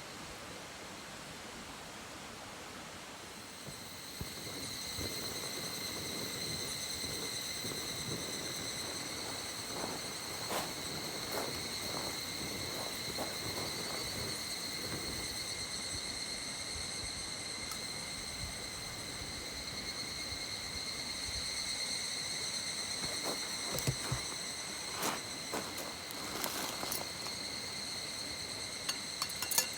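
An insect singing a steady, unbroken high buzz that starts about four seconds in, over the rush of a mountain stream, with a few scattered knocks and clicks.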